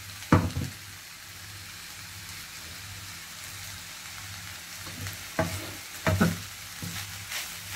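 Chicken and egg fried rice sizzling in a frying pan while a wooden spatula stirs and scrapes through it. The spatula knocks against the pan a few times, loudest about half a second in and again around six seconds in.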